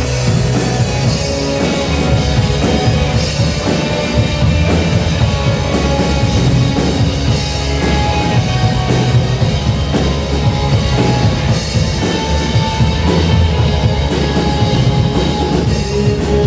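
Rock band playing an instrumental passage without vocals: drum kit, bass and other instruments at a steady loud level.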